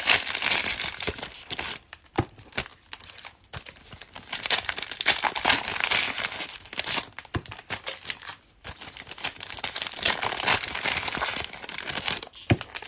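Foil trading-card pack wrappers crinkling as packs are ripped open, in several spells of crackling with short pauses between them.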